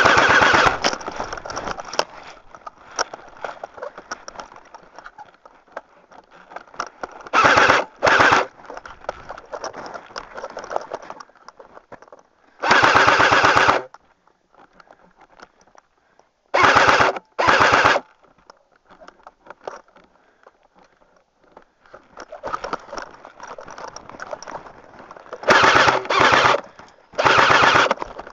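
Airsoft gun firing loud full-auto bursts of rapid shots, each lasting up to about a second, repeated several times with pauses between.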